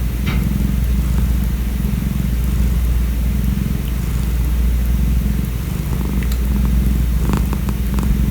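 Calico cat purring steadily and loudly, close to the microphone, with a few faint clicks near the end.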